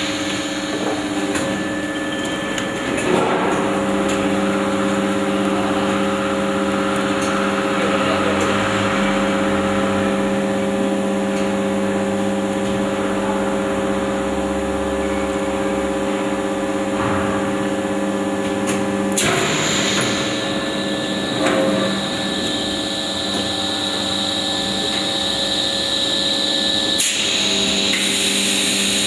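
Extrusion blow molding machine running while the HDPE parison is extruded: a steady hum with several tones from its motors and hydraulics. The hum is broken by short bursts of noise about three seconds in, about 19 seconds in and near the end. A faint high whine sounds between the last two bursts.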